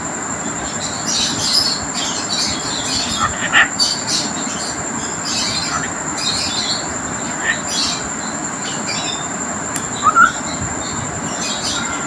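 Cockatiel giving short high chirps throughout, two of them louder, about three and a half and ten seconds in, over a steady background hiss with a constant thin high whine.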